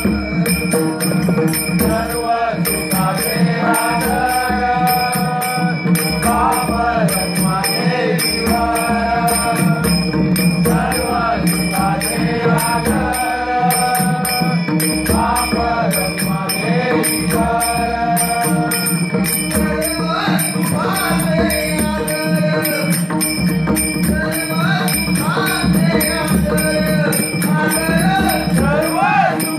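A bhajan being sung: voices chanting a devotional melody over a steady held drone, with a constant rhythmic jingle of small bells or cymbals and a pulsing low drum beat.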